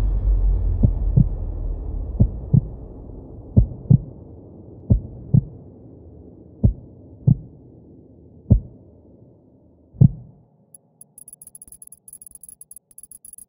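Soundtrack heartbeat effect: deep double thumps over a low drone that slowly fades, the beats spacing out and ending with one last thump about ten seconds in. Then faint, high crackling ticks.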